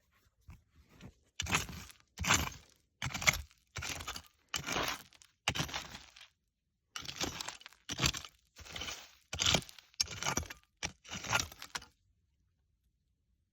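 Repeated scraping and crunching strokes of a hand tool digging through rocky dirt and loose quartz crystals, with stone and crystal clinking. About fifteen short strokes, with a brief pause midway.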